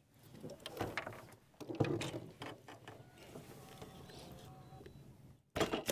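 Handling noise on a fishing boat's deck: irregular knocks, taps and rattles as a just-caught crappie is unhooked and laid down to be measured, with a louder thump about two seconds in and a quick run of clicks near the end.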